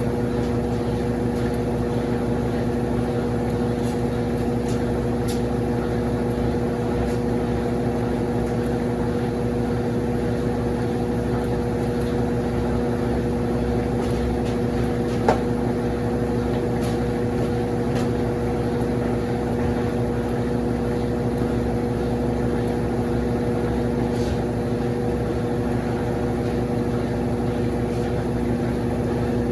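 Consul CWS12 12 kg washing machine running with a steady motor hum, and one short click about halfway through.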